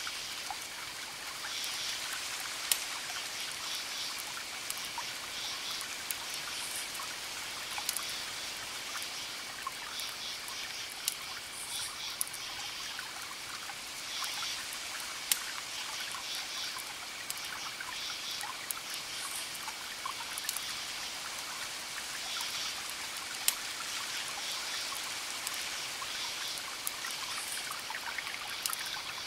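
Crackling wood fire: sharp pops every few seconds over a steady hiss. Behind it, a high chirping comes and goes in short repeated bursts.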